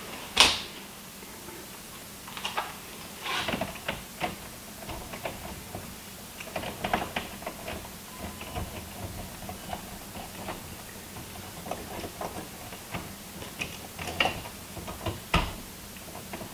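Hand tools and stiff copper wire being worked inside a breaker panel: scattered clicks, taps and scrapes, with a sharp click about half a second in and another loud one near the end, over a faint steady hum.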